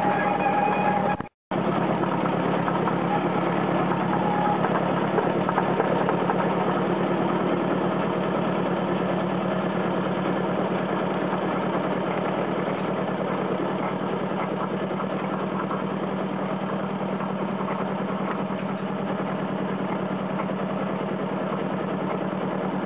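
Engine of a ride-on miniature train locomotive running at a steady hum as the train travels along the track. The sound cuts out completely for a split second just over a second in.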